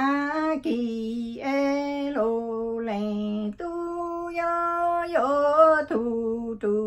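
A woman singing Hmong lug txaj, a chanted sung poem, solo and without accompaniment. She holds long notes that step between a few pitches, with short breaks between phrases.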